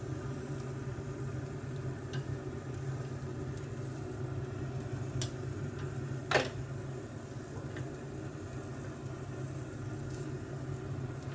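Steady hum of a Pit Boss pellet grill's fan under the light sizzle of shrimp and skirt steak on the open grate. A few clicks of metal tongs come through it, the sharpest about six seconds in.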